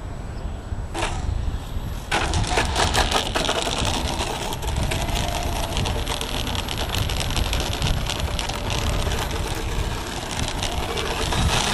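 Strong wind buffeting the microphone, turning into a dense crackling rush about two seconds in. Under it, the faint whine of a small RC model-airplane motor shifting in pitch.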